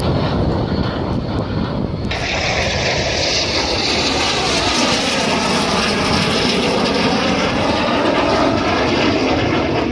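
Small jet aircraft flying past overhead with a loud, steady engine rumble. About two seconds in the sound abruptly turns brighter and hissier and stays that way as the jet passes.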